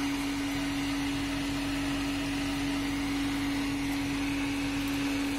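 A steady hum holding one pitch, over a faint even hiss.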